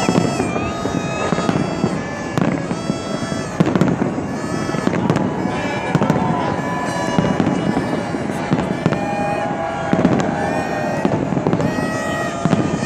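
Aerial fireworks display: a continuous run of bangs and crackles from shells bursting overhead, over a bed of crowd noise. Long held tones at several pitches come and go throughout.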